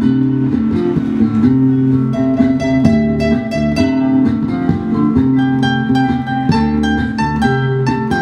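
Acoustic guitar picking a steady, repeating pattern of notes in an instrumental passage of a song, with no singing.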